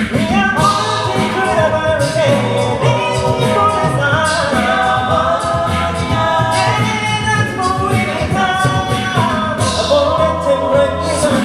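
A cappella vocal group singing in close harmony on wordless syllables over a sung bass line, with a steady beat kept by vocal percussion.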